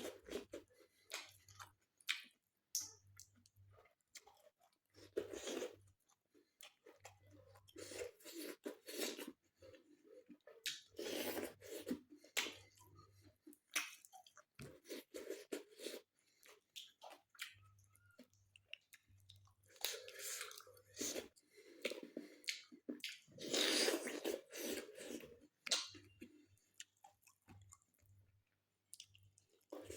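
A person chewing and eating food, in irregular bursts a second or two long separated by short pauses.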